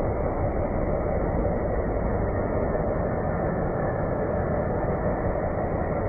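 Steady, dense rushing rumble with no pauses or changes, sitting low and cut off above the upper midrange: NASA's "sound of Saturn", spacecraft radio-wave data from the planet played back as audio.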